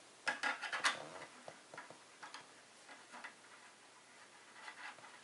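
Small clicks and ticks of a detachable antenna being twisted onto the threaded connector of an Asus PCE-N10 wireless card: a cluster of clicks in the first second, then faint scattered ticks.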